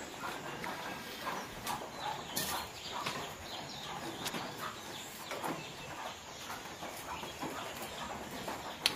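Wood fire crackling and snapping in a hearth as sticks are pushed into it, with one sharp snap near the end; chickens cluck in the background.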